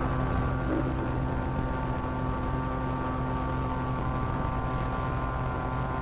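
Steady electric hum of a giant magnetic telescope machine, a cartoon sound effect made of several steady tones over a low drone.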